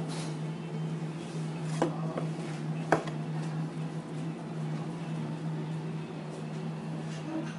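Kitchen knife working along an eel fillet on a wooden cutting board, with two sharp knocks of the blade on the board, about two seconds in and again a second later, over a steady low hum.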